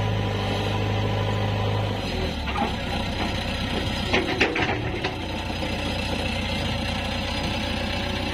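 JCB 3DX backhoe loader's diesel engine running steadily as the front loader bucket tips out soil; its low drone eases about two seconds in. A few sharp knocks come around four to five seconds in.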